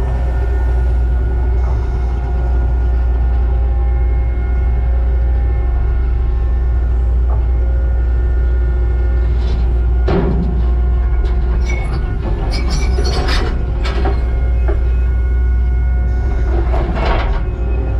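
Skid steer's diesel engine running steadily under load with a steady whine over it, while its steel tooth bucket scrapes and grinds against broken concrete slabs about ten seconds in, again between about twelve and fourteen seconds, and near the end.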